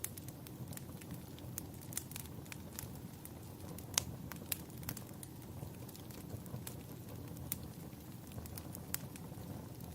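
Wood fire crackling: scattered sharp pops over a low steady rumble, the loudest pop about four seconds in.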